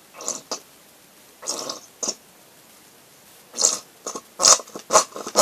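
Homemade glue slime being mixed in a small pot as shampoo goes in: a handful of short, irregular sticky noises, growing louder and closer together near the end.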